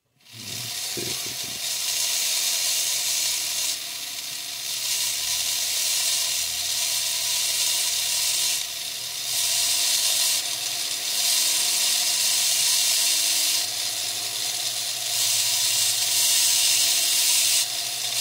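High-speed rotary carving tool with a diamond bit grinding into wet fire agate. A steady high motor whine sits under a loud hiss from the bit cutting the stone, and the hiss eases briefly a few times.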